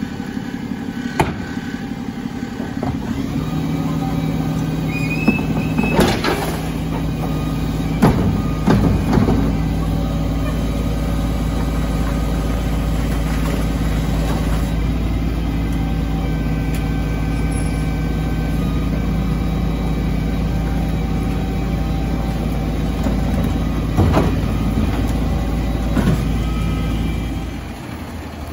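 DAF refuse truck with an NTM split body running its hydraulic rear bin lift to raise and tip a wheelie bin: a steady low engine-and-hydraulic hum that grows louder a few seconds in and drops away near the end as the truck pulls off. Several sharp bangs of the plastic bin knocking against the lift and body come through the hum.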